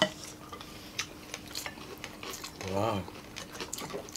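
Spoons and cutlery clicking and scraping against plates and a glass serving bowl during a meal, with a sharp clink at the start. About three seconds in, a short low voiced hum, like an 'mmm' while eating.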